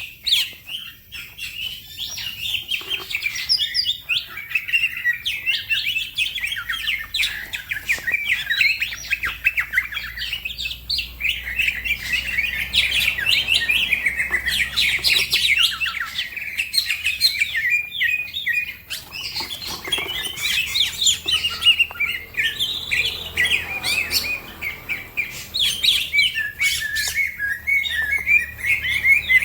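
Green leafbird (cucak ijo) singing a fast, unbroken stream of chirps and warbles.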